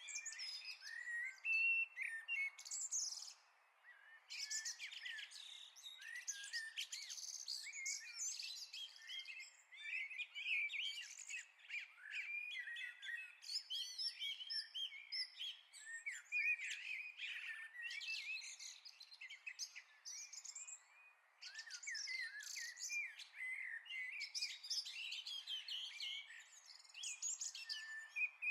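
Birdsong chorus: several small songbirds singing and chirping over one another, with short lulls about four seconds in and again around twenty-one seconds.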